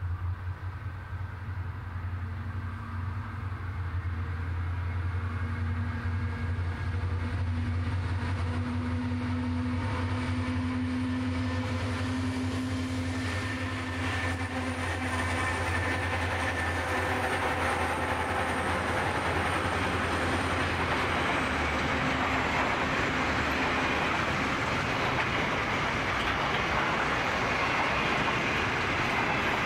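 Freight train hauled by three G-class and XR-class diesel-electric locomotives approaching and passing, a steady deep engine drone that swells as they draw near. After the locomotives pass about halfway through, the drone fades and loaded container wagons roll by with a steady, growing rush of wheel noise on the rails.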